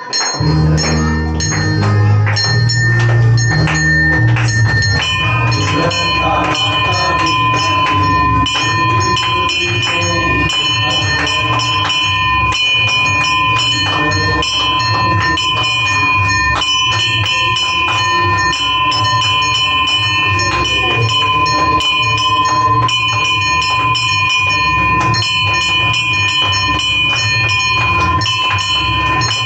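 Brass hand bells ringing without a break during a Hindu aarti. A second bell's tone joins about five seconds in, over a steady run of sharp strikes and voices chanting or singing along.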